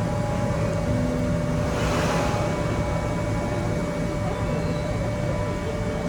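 Mark Twain sternwheel riverboat heard from on deck: a steady low rumble of the boat under way, with a constant hum and a brief hiss swelling about two seconds in.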